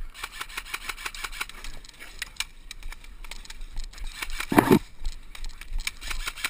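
Airsoft guns firing scattered single shots and short strings, heard as sharp irregular clicks and snaps, with a louder rustling burst about two-thirds of the way through.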